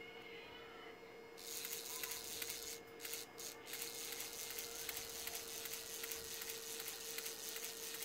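Nikon D3100 mirror and shutter drive motor starting about a second and a half in and running with a faint, fast whirring of its small gear train. The repaired mechanism is working smoothly.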